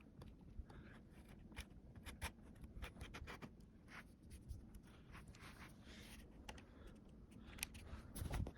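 Faint small clicks and scrapes of parts being handled as the wedge is fitted at the top of the bike's fork, with a duller knock near the end.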